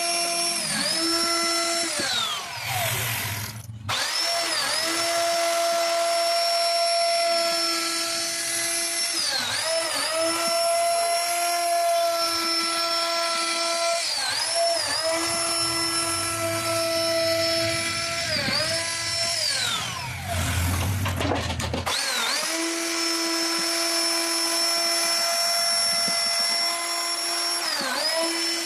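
CNC router spindle running with a steady high whine while its bit carves wood, the pitch dipping briefly and recovering every few seconds as the cutter takes load. Twice the whine slides steeply down in pitch, then comes back at full speed.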